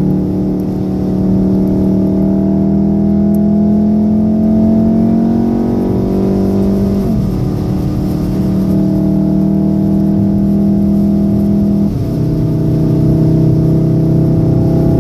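VW Golf 7 R's turbocharged 2.0-litre four-cylinder engine, heard from inside the cabin, pulling under acceleration. Its pitch climbs steadily, then drops at two upshifts, about seven seconds in and again near twelve seconds.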